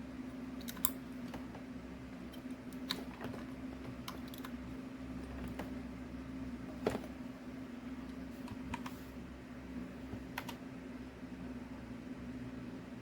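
Sparse, irregular keystrokes on a computer keyboard, single clicks a second or so apart, over a steady low hum.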